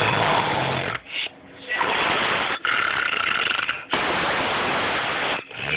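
A man snoring loudly in his sleep: about four long, noisy snores back to back, with a short pause after the first one.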